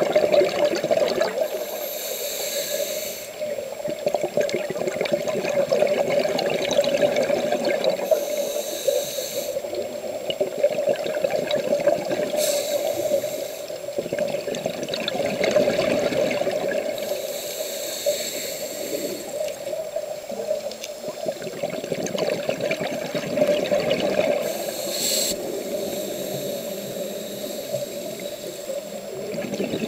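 Scuba regulator breathing recorded underwater through a camera housing: a hiss recurs every five to six seconds, five times, over a steady rushing water noise.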